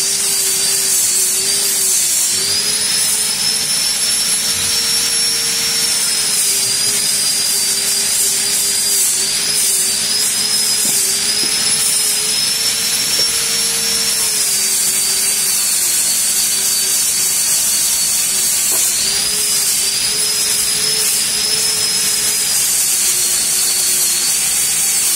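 A machine runs steadily, giving a loud, even hiss with a faint hum that wavers slightly in pitch.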